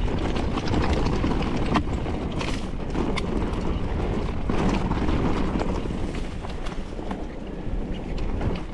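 Wind buffeting the microphone while riding an electric-assist mountain bike over a rough trail, with a steady low rumble and a few sharp knocks from the bike jolting over the ground about two and three seconds in.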